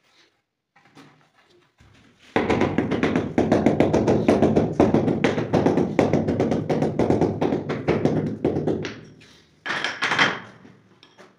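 A marble floor tile being tapped down into its sand-cement bed in rapid taps, several a second, for about six seconds, with a shorter burst of taps near the end.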